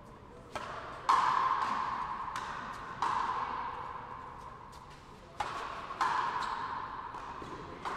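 Frontenis rally: the ball struck by strung rackets and smacking off the frontón wall, six sharp hits a second or two apart, each ringing on in the hall. The loudest hit comes about a second in.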